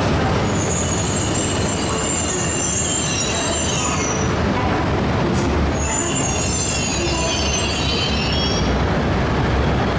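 Wheels of a silver E3-series Tsubasa shinkansen squealing as the train pulls slowly away from the E5 it has just been uncoupled from. There are two long bouts of high-pitched squeal, the second starting a little after the middle, over a steady low rumble of the moving train.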